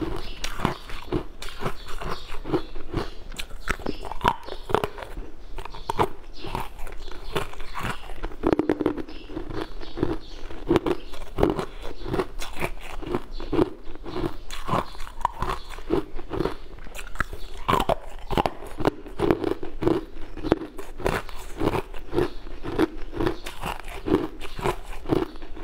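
Close-miked crunching and chewing of frozen coloured ice cubes: a steady run of sharp cracks as the ice breaks between the teeth, several a second, with chewing in between.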